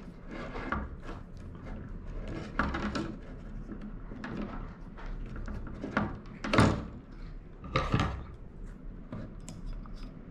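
Irregular knocks, clicks and rustles of a fishing rod, reel and line spooler being handled, with the two loudest knocks about six and a half and eight seconds in.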